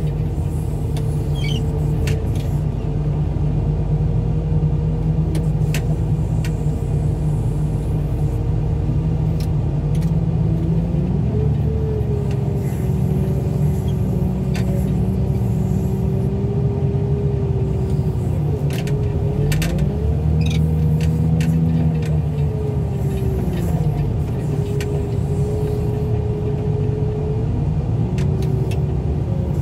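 Heavy equipment's engine running steadily with a hydraulic whine that shifts pitch several times as the grapple works and lifts a junk minivan, with scattered clicks and knocks.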